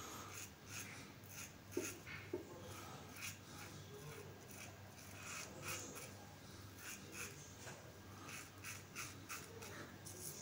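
Kanzy Twist adjustable safety razor with a Bolzano stainless blade scraping through lathered stubble, faint, in short repeated strokes two or three a second, on an across-the-grain pass.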